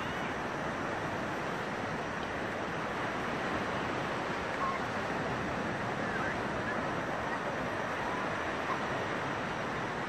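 Steady wash of small sea waves in shallow water, with a few faint short chirps over it.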